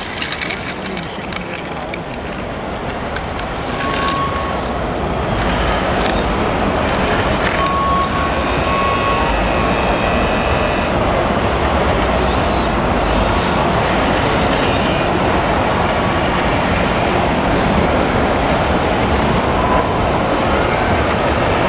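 Steady rumble of heavy machinery mixed with the din of a busy hall, getting louder about four seconds in and then holding.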